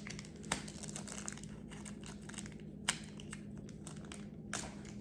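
Faint crinkling of packaging and a few light clicks as a small plastic minifigure and its base are handled.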